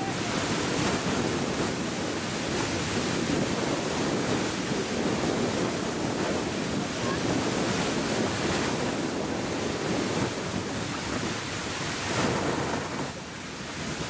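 Beehive Geyser erupting: a steady rush of water and steam jetting from its narrow geyserite cone vent.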